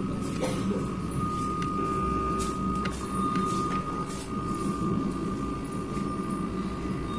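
A home theatre speaker putting out a steady high whistle over a low rumbling hum, with scattered faint clicks. This is the fault the repairer calls a 'train whistle' sound.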